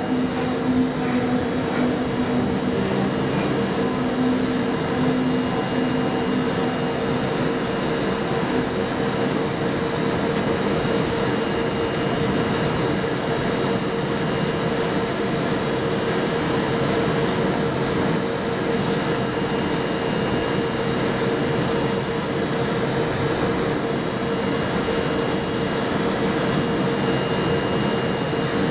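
JR Freight EF64 1000-series DC electric locomotive standing still with its onboard equipment running. The cooling blowers and auxiliary machinery give a steady hum over a constant hiss.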